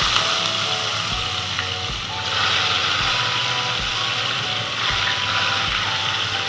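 Sardine pieces sizzling as they fry in hot vegetable oil in a kadai, a dense, even hiss. The sizzle grows louder about two seconds in as another piece goes into the oil.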